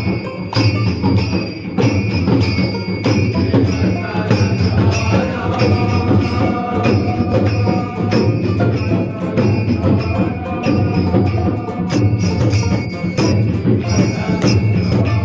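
Music with a steady percussion beat.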